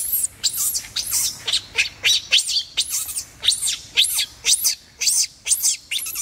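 Infant macaque screaming: shrill squeals about two a second, each rising and then falling in pitch. These are the angry distress screams of a baby refused nursing by its mother.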